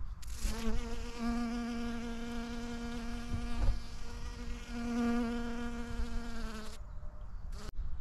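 Honeybee buzzing as it hovers around a poppy flower: one steady hum that starts about half a second in and stops abruptly about a second before the end. A sharp click follows just before the end.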